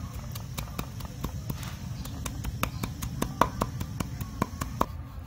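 Kitchen knife chopping garlic on a wooden cutting board: quick, irregular knocks of the blade striking the board, about four or five a second, over a low steady background rumble.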